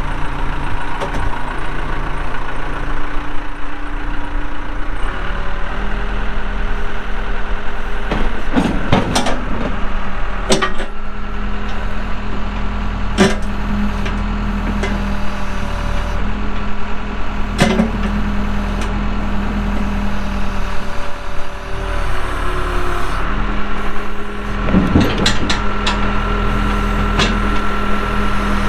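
Cummins diesel engine of a 1998 Case 580L backhoe running just after start-up. Its engine speed steps up about five seconds in and again around twenty-two seconds. A few sharp clunks come in between.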